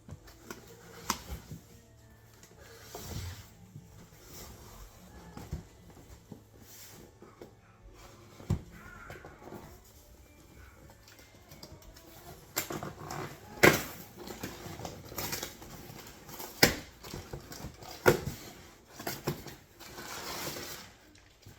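Handling noise from unpacking a cardboard box: packaging rustling, with scattered knocks and taps as items are lifted out and set down. The sharpest knocks come in the second half.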